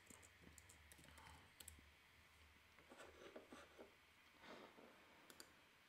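Faint computer keyboard typing: a few scattered, quiet key clicks over a low steady hum, otherwise near silence.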